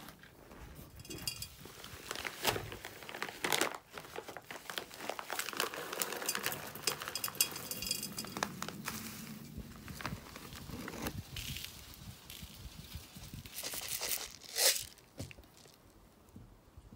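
A bag of potting soil rustling as it is handled and soil is poured from it into a clay pot, in irregular crackles, with one louder crackle near the end.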